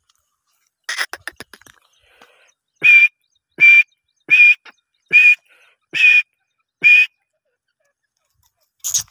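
Grey francoline calling: a quick run of short clicking notes, then six loud, evenly spaced calls at about one every 0.8 s.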